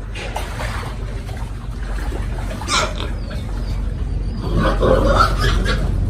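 Pigs squealing and grunting: one sharp squeal about three seconds in and a rougher run of grunts and squeals near the end, over a steady low hum.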